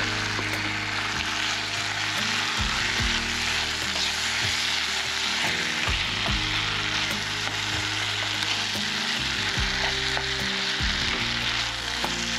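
A steady sizzling hiss, with background music and a bass line underneath.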